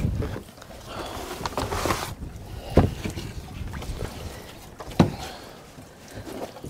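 Two sharp knocks about two seconds apart as a person climbs out of an inflatable tender onto the side of a moored boat, over wind noise.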